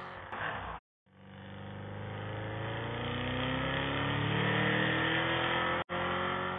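Car engine accelerating, its pitch slowly rising as it grows louder over several seconds, broken by a short silent gap near the start and a brief dropout near the end.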